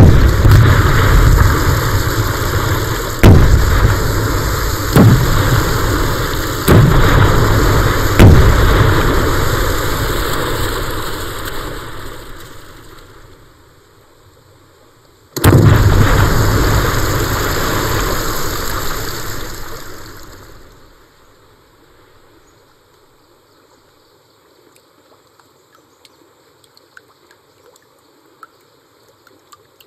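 Explosions: a blast at the start, four more over the next eight seconds, and another about fifteen seconds in, each ending in a long rumble that dies away. After that there is only a faint trickle of water.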